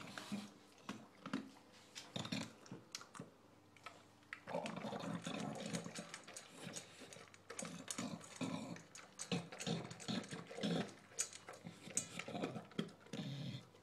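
English bulldog eating noisily from a stainless-steel bowl: wet chewing and crunching full of sharp clicks, over repeated grunting, wheezy breaths. It is quieter for the first few seconds, then louder and busier from about four and a half seconds in.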